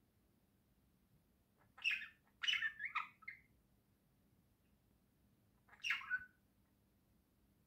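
Budgerigars chirping: a short harsh call about two seconds in, a quick run of chirps right after it, and one more call near six seconds.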